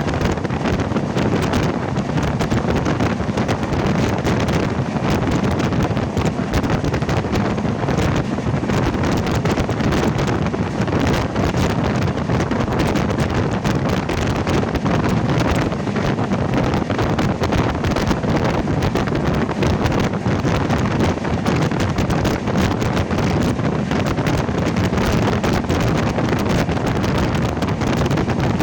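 Steady wind buffeting the microphone from a moving passenger train, with the train's running rumble underneath and no break or change throughout.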